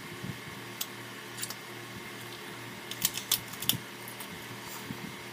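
Eating sounds: chewing a crunchy crab tostada, with sharp crisp crunches that bunch together about three seconds in. A desk fan hums steadily underneath.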